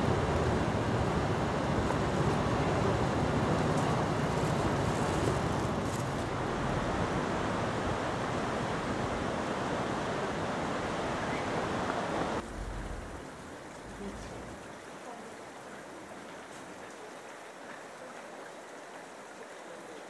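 Mountain river rushing over rocks and rapids in a steady, loud roar of water. It cuts off abruptly about twelve seconds in, giving way to a much quieter, steady outdoor background.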